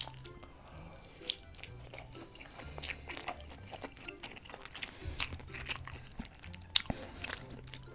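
Close-miked chewing of a large meat-filled dumpling: a run of irregular wet mouth clicks and squelches, with a few sharper clicks near the end. Soft background music plays underneath.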